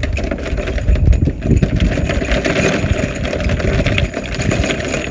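Loose nails rattling and clattering against each other as a tool pouch full of them is shaken hard, a dense unbroken jingle of metal on metal.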